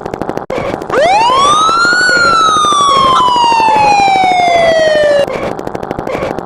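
A siren sound effect: one long wail that rises steeply for about a second, then falls slowly for about three seconds and cuts off suddenly. It plays over a fast, steady ticking.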